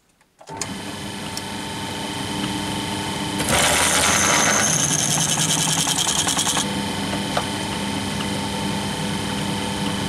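A pillar drill's motor starts up and runs with a steady hum as a 6 mm drill bit feeds through a metal part held in a vise. From about three and a half seconds in to about six and a half seconds the bit is cutting, louder with a fast chatter, then the drill runs on more quietly.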